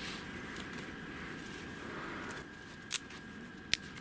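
Small frozen twigs and dry needles being handled for kindling: a low rustling, with two sharp snaps near the end.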